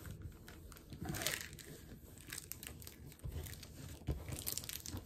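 Clear plastic covering on a diamond painting canvas crinkling and rustling in irregular soft crackles as hands press and smooth the canvas flat.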